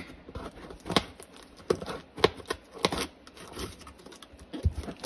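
A small cardboard shipping box being handled and worked open by hand: a string of irregular clicks, taps and scrapes on the cardboard and tape.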